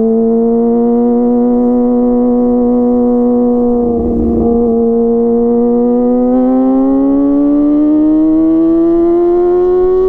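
Kawasaki ZX-25R's 249 cc inline-four running through a DX Generation Pro Race full-system aftermarket exhaust while riding. It holds a steady high-revving note, with a brief wobble about four seconds in, then the revs climb steadily through the second half as the bike accelerates.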